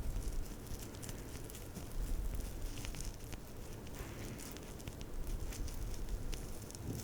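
Close-miked skincare handling sounds: soft rubbing and low rumbling with many small, scattered crackles and clicks.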